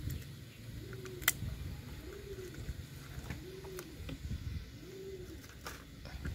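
A dove cooing: four low arched coos roughly a second and a quarter apart. Over it come a few light clicks and taps, the sharpest about a second in.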